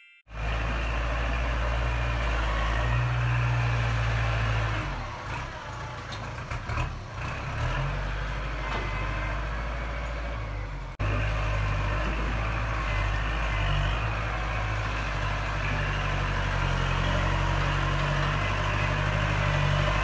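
Kubota compact tractor's diesel engine running steadily while its front loader pushes sawdust. The engine sound wavers and drops off about five to eight seconds in, and breaks off abruptly about halfway through before resuming steadily.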